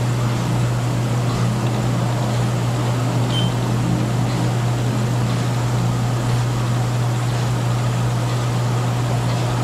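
Steady hiss and hum of a medium-wave AM receiver tuned to about 500 kHz, with a few faint crackles: static from lightning discharges in a passing thunderstorm.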